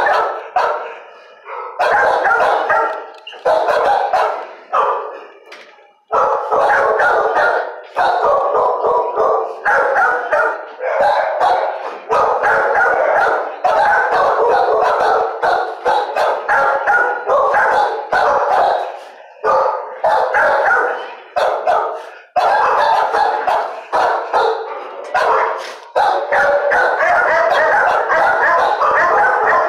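Many shelter dogs barking over one another, loud and almost without pause, with brief lulls about a second in and about six seconds in.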